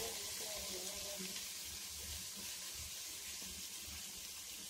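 Faint, steady sizzle of chopped vegetables and soaked peas frying in oil in an open pressure cooker.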